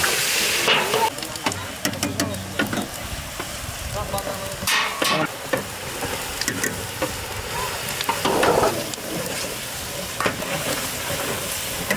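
Onion paste and ground spices sizzling in a large, steaming stainless steel cooking tray. A long metal paddle stirs them, knocking and scraping against the pan several times.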